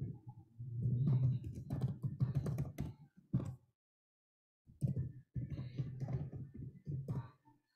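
Typing on a computer keyboard: two runs of quick key clicks, with a pause of about a second between them.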